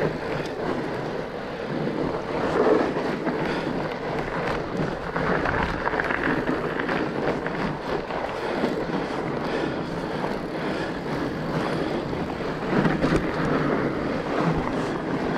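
Fat bike being ridden along a rough trail: a continuous rumble of the wide tires and the rattling bike, with scattered knocks from bumps.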